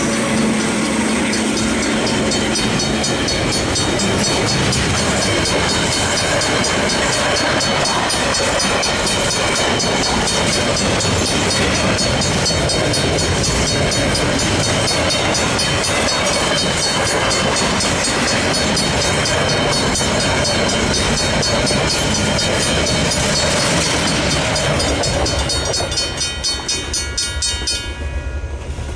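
Freight train wagons rolling through a level crossing, wheels clattering on the rails, with the trailing diesel locomotive's engine tone in the first few seconds. Griswold mechanical crossing bells ring rapidly and steadily throughout, and are heard more clearly near the end as the train noise thins.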